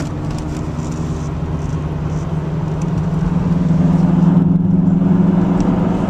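Car engine drone and tyre road noise heard inside the cabin at dual-carriageway speed, the engine note growing louder about halfway through.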